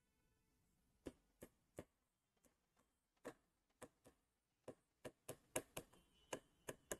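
Pen tip tapping on a touchscreen display during handwriting: a string of faint, sharp, irregular clicks that starts about a second in and comes quicker near the end.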